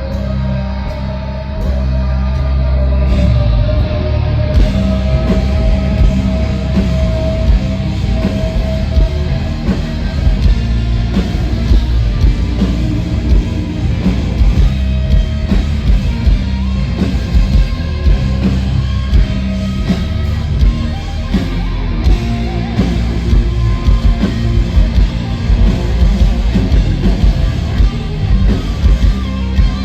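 Heavy metal band playing live through a festival main-stage PA: loud distorted guitars, bass and drums, with the drumming turning into rapid, dense hits in the second half.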